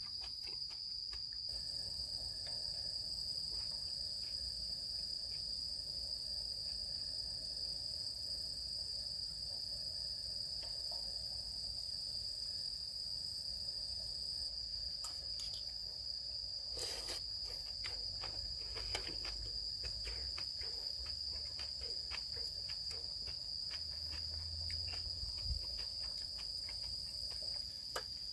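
Crickets chirping in a continuous high-pitched chorus, with scattered small clicks and knocks over it, one stronger knock about halfway through.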